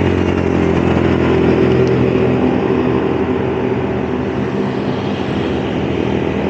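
City traffic heard from a bicycle: motorcycle and car engines running close by, a steady engine hum that eases after about four seconds, over a haze of wind noise on the microphone.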